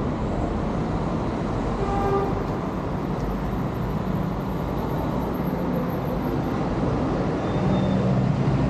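City street traffic: cars driving past on the road below, with a brief faint toot about two seconds in. A low steady hum comes in near the end.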